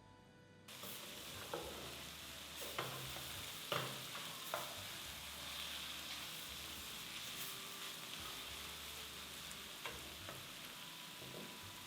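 Food sizzling in a frying pan, with a utensil stirring and giving a few sharp taps and clicks against the pan. The steady sizzle cuts in abruptly about a second in.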